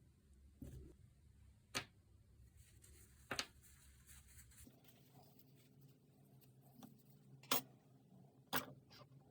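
A few sharp, irregular clicks and light knocks, about five in all and the loudest late on: small parts and tools being handled on a workbench.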